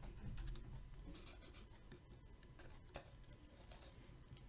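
Quiet rustling and rubbing of a trading card and its paper cover being handled, with a few light clicks, slightly louder in the first half second.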